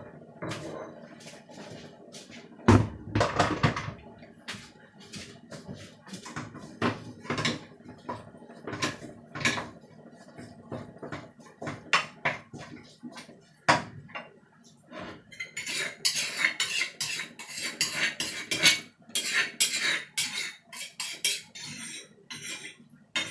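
Kitchen utensils knocking and scraping against a frying pan and pots: a wooden spatula stirring and tossing food in the pan, with scattered clinks and knocks. There is a loud knock about three seconds in, and a dense run of rapid clatter in the last third.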